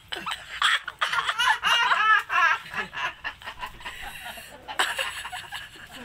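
A person laughing: a burst of high-pitched laughter about a second in, tailing off after a couple of seconds.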